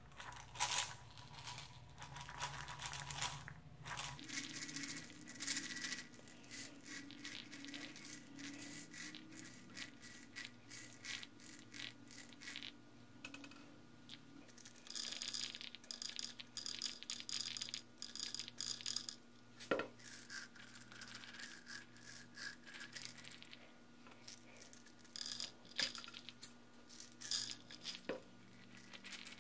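Copper BBs trickling through a small funnel into a tennis ball: a dense, irregular patter of tiny metallic clicks that comes and goes in spells, over a faint steady hum.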